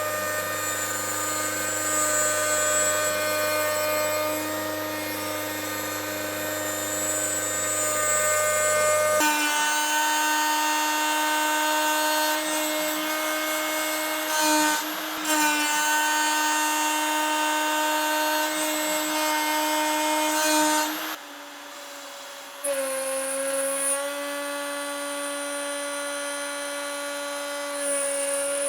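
CNC router spindle whining at a steady pitch while an end mill cuts. The pitch and character change abruptly about a third of the way in, and again about three quarters through after a brief quieter stretch, as one cut gives way to another.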